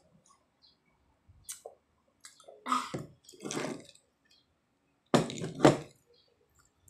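A child's wet mouth sounds, sucking and slurping, in a few short bursts, the two loudest about five seconds in.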